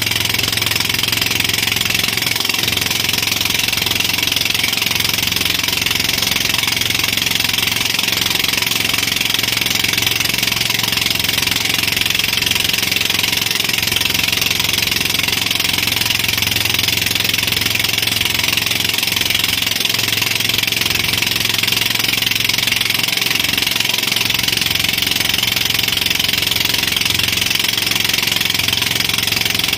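Motorboat engine running steadily at speed while towing, with a constant rush of water and spray.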